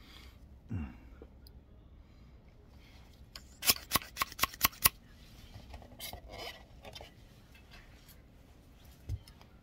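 A quick run of about eight sharp clicks or snips, lasting about a second and a half, with faint handling noise after and a single low thump near the end.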